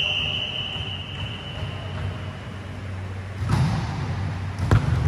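Volleyball struck twice, about a second apart, in the second half. Before that, a high, steady whistle tone fades out over the first two seconds. A low, steady hum runs underneath.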